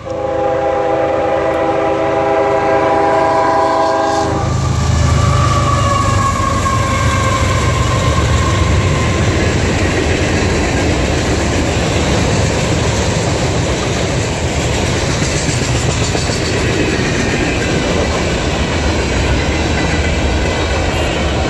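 A CSX freight train's locomotive air horn sounds one long multi-note chord as it reaches the grade crossing, cutting off about four seconds in. Then the freight train passes close by: a loud, steady rumble of wheels on rail with clickety-clack.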